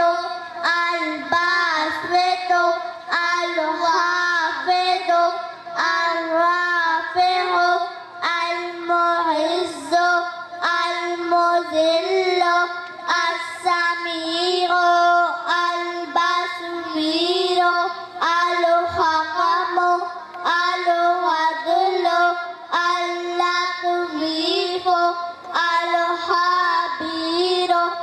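A young girl singing a naat solo, one high voice without accompaniment, in long melodic phrases with short breaths between them.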